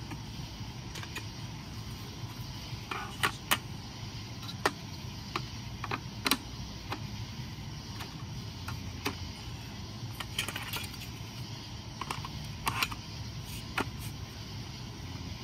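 Scattered light clicks and knocks of small objects being handled, a dozen or so at irregular intervals, over a steady low rumble.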